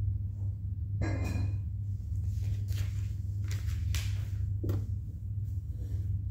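Plastic Lego Technic pieces being handled and fitted together: a short rattle about a second in, then several brief clicks and rustles, over a steady low hum.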